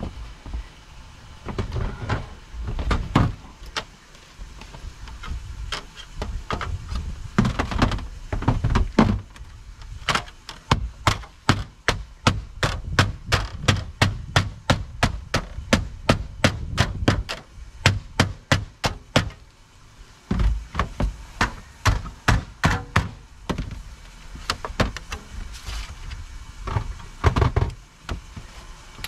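Repeated hand-tool strikes on steel roof flashing as its edge is worked down against a corrugated metal roof. There are scattered heavier knocks, then a long even run of quick taps, about three or four a second, through the middle.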